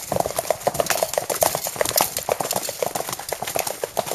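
Horses' hooves clip-clopping: a quick, uneven series of hoof falls.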